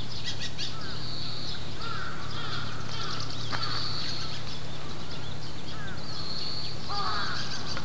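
Crows calling in a string of curved, laughter-like caws, loudest about seven seconds in, over steady high chirping and trilling of small songbirds.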